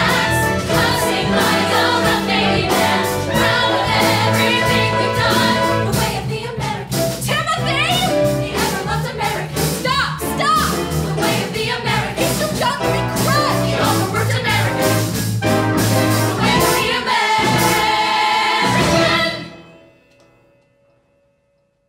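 Mixed chorus of men and women singing a musical-theatre ensemble number, ending on a long held chord that cuts off near the end, followed by near silence.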